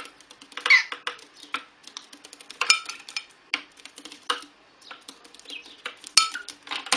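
Rapid, irregular clinking and clattering of small hard objects, like dishes or cutlery being knocked about.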